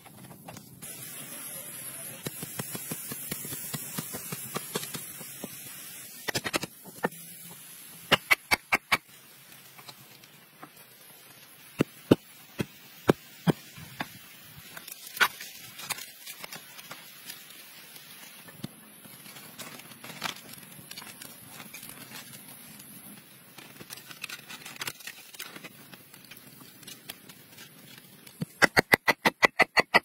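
Hands scraping and digging in loose soil, then sharp knocks of wood striking wood: a quick run of blows about eight seconds in, scattered single knocks, and another quick run of blows near the end as a wooden stake is pounded into the ground.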